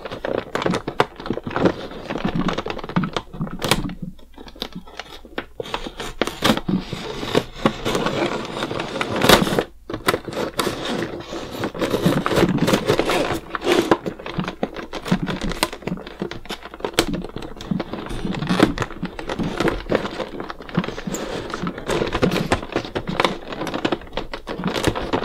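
X-Acto hobby knife scoring and sawing through the clear plastic blister of a toy package: a dense, irregular run of scratching, crackling and clicking as the blade drags and the plastic flexes. The blade may be dull enough to want sharpening.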